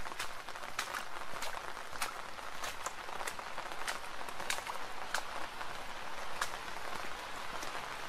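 Steady rain: an even hiss with many distinct, sharp drop hits landing close by, several a second.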